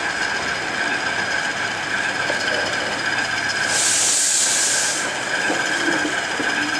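Model railway locomotives running on the layout, a steady high whine over a busy hum. A loud burst of hiss comes about four seconds in and lasts about a second.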